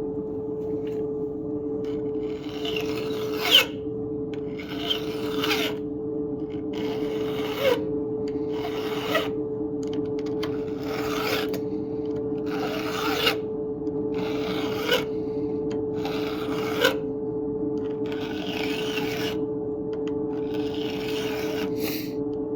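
Flat file rasping across the depth gauges (rakers) of a chainsaw chain, about a dozen long strokes, one every second and a half to two, several ending in a sharp click. The rakers are being taken down a lot so the chain bites harder, with a steady low hum underneath.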